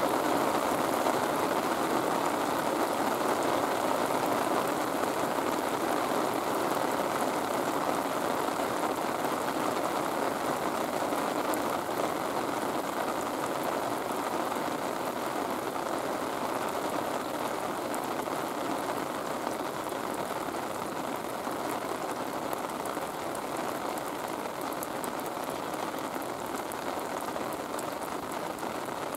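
Steady rain falling, a constant even hiss that eases slightly toward the end.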